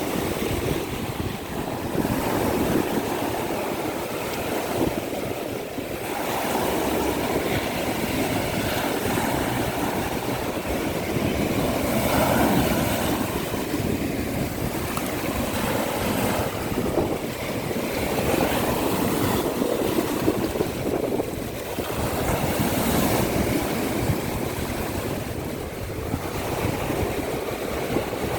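Baltic Sea surf breaking on the shore, the wash swelling and easing every few seconds, with wind buffeting the microphone.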